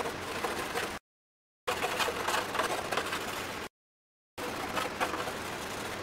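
Coloured pencil scratching rapidly back and forth on a bare wooden panel in fast scribbling strokes. The sound comes in three stretches, cut off twice by short dead silences.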